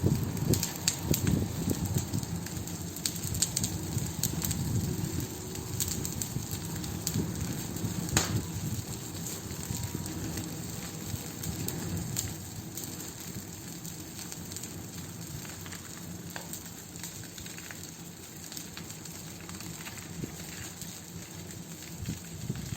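Wood fire crackling, with a steady hiss of flames and frequent sharp pops and snaps, busier in the first few seconds and one loud snap about eight seconds in.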